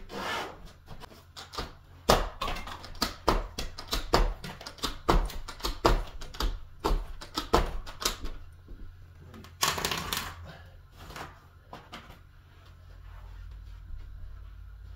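Carpet knee kicker being bumped again and again, a quick series of thuds and knocks, hooking the carpet onto the tack strip pins along the wall. About ten seconds in there is a short scrape, then only a low hum.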